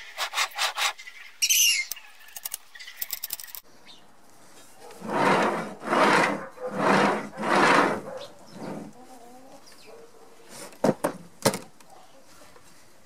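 A homemade linear-bearing carriage, a steel plate on bolted bearing wheels, rolled back and forth by hand along a steel rail. It makes a rolling, rubbing sound in about four even strokes, after a few quicker strokes at the start. Two sharp metal clicks come near the end.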